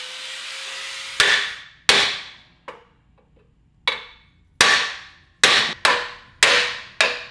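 A hammer striking the steel frame of a racing lawn mower where the cut front subframe is being knocked into position: about nine blows at uneven spacing, some light, each ringing briefly. Before the first blow, an angle grinder runs free off the work with a steady whine.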